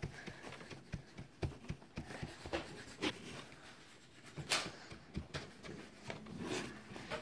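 Bingo marker's foam tip dabbed and rubbed repeatedly on paper: irregular soft taps and scrubbing, with a few sharper knocks, the loudest about four and a half seconds in.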